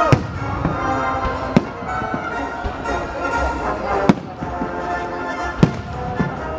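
Aerial firework shells bursting overhead, four sharp bangs spaced about one and a half to two and a half seconds apart, over music playing throughout.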